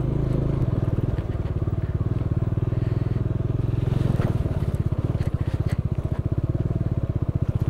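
Bajaj Dominar 400's single-cylinder engine running at low revs with a fast, even pulse as the motorcycle rides slowly over a rough gravel track. The pulse grows more distinct in the second half, with a few faint clicks from stones.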